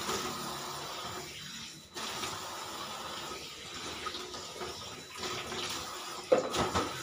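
Tap water running into a stainless steel kitchen sink while dishes are rinsed by hand, dropping off briefly about two seconds in. A sharp knock near the end is the loudest sound.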